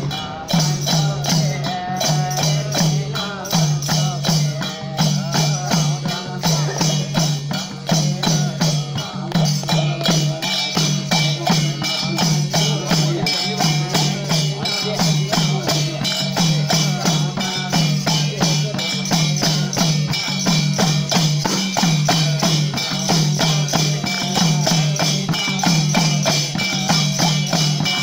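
Nepali devotional folk percussion: a madal hand drum beats a steady repeating rhythm under frame drum, clashing hand cymbals and hand clapping. The cymbals ring more densely from about ten seconds in.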